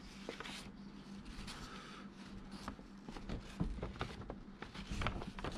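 Folded paper instruction leaflet being unfolded and flattened by hand, crackling and rustling in a string of short crinkles.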